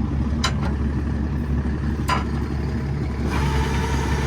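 Large engine idling steadily with a low rumble and a few sharp clicks; a higher mechanical hum joins about three seconds in.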